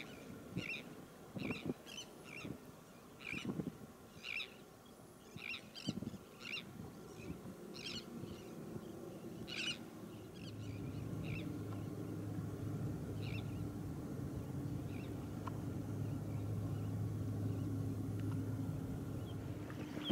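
Short bird calls from the mixed shorebird flock on the tidal flat, repeated every second or so and thinning out. About halfway through, a steady low engine drone sets in and carries on over the few remaining calls.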